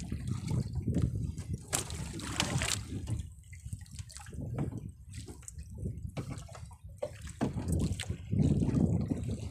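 Seawater sloshing and gurgling against the side of a small boat, rising and falling unevenly, with a couple of sharp clicks about two seconds in.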